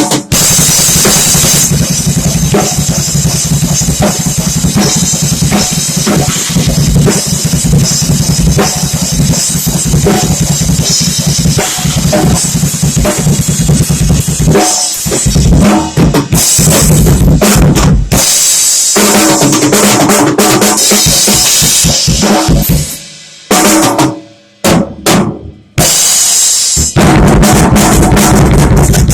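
A drum kit being played loudly, with fast, dense hits and cymbals ringing over them. The playing breaks off briefly a few times near the end.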